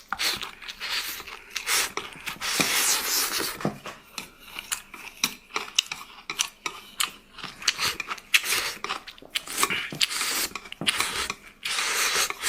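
Close-miked eating: chewing, with many sharp clicks of utensils against dishes and short bursts of noisier chewing.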